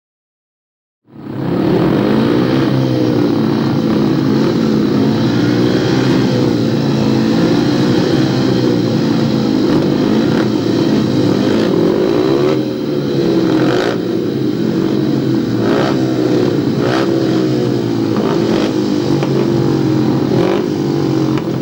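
Several speedway motorcycles' single-cylinder 500 cc methanol engines running and revving at the start line, their pitch rising and falling as the riders blip the throttles, starting about a second in.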